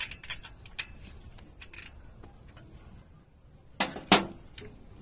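Metal clicks and ticks as a wrench works the rocker-arm adjusting screws and locknuts while the valve clearances are set. About four seconds in there are two louder knocks close together.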